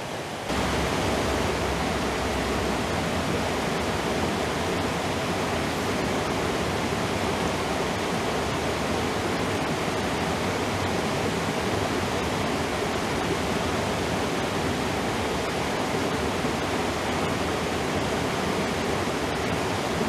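Mountain creek water rushing steadily over rocks and a small cascade into a pool, a constant even rush that starts about half a second in.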